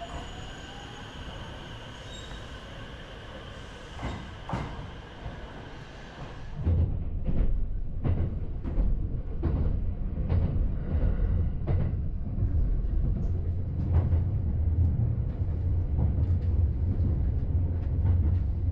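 For the first six seconds or so, a steady high whine and hum come from a standing electric train at a station platform, with a couple of clicks. Then the sound of a JR West 287 series electric express train running at speed, heard from inside the car, takes over: a steady low rumble with repeated clacks of the wheels over rail joints.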